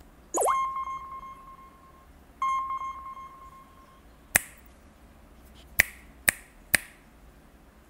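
Two ringing chime tones, each struck sharply and fading over about a second and a half, then four sharp plastic clicks, as of toy robot parts snapping into place.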